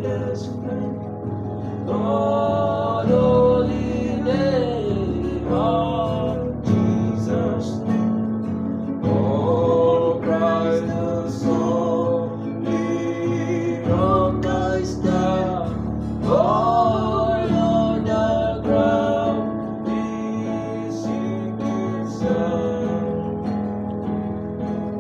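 A hymn sung over a strummed acoustic guitar, the voice gliding between sustained notes.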